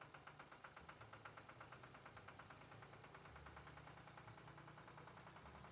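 Faint, steady chugging of a small tractor engine, an animation sound effect, with even beats about seven a second over a low hum.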